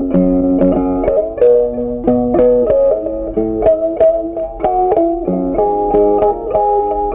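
Background music: a plucked guitar tune, one note after another at a steady pace.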